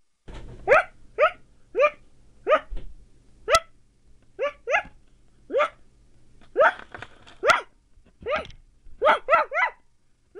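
A young child imitating a dog barking: about fifteen short yips, each rising in pitch, coming in uneven bunches.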